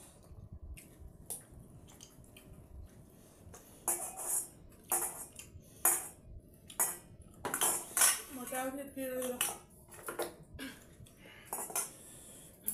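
Stainless steel bowls and plates clinking and scraping while rice is eaten by hand, with a string of sharp separate clinks in the second half. A brief murmured voice comes in partway through.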